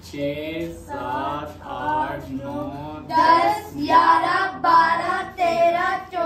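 Children's voices chanting in a high sing-song, one drawn-out syllable about every two-thirds of a second, as a cheer while banknotes are counted out.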